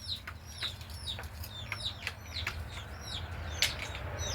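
Birds chirping: many short, high chirps falling in pitch, several a second, over a low steady hum, with one sharp click about three and a half seconds in.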